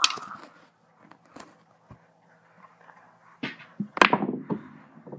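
Pool balls clicking on a pool table: one sharp click, then a few faint knocks. About four seconds in there is a louder knock with rustling.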